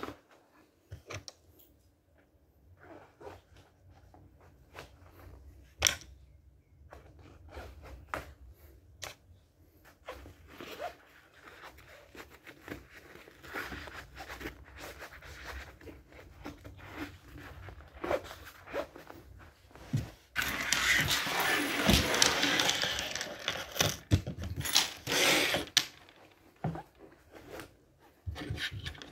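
Handling noises: scattered clicks, knocks and short scrapes, getting busier partway through, then a few seconds of continuous rasping about two-thirds of the way in and a second, shorter rasp soon after.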